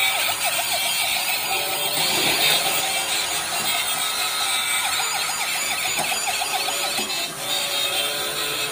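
Toy police truck's electronic siren sounding a fast, repeating up-and-down yelp.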